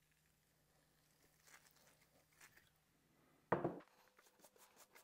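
Two short hisses from a WD-40 aerosol spray can, then a single sharp thump about three and a half seconds in, followed by light crackling ticks.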